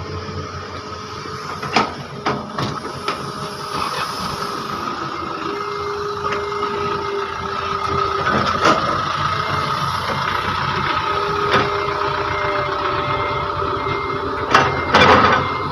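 Heavy diesel earthmoving machinery (excavator and dump truck) running steadily with a constant high whine. A reversing alarm beeps in two spells, about five seconds in and again from about twelve seconds, and there are several sharp knocks, the loudest cluster near the end.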